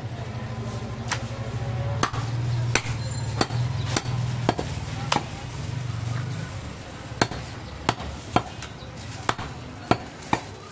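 A butcher's heavy knife chopping goat ribs on a wooden log chopping block: a dozen or so sharp, irregular chops. A steady low hum runs under the first two-thirds and then stops.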